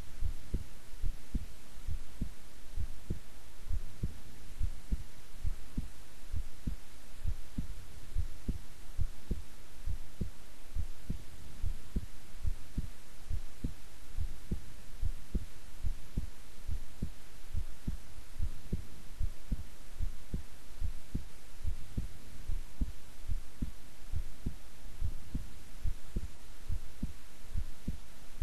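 A young woman's heartbeat at rest, heard close up: a steady, even run of low thumps.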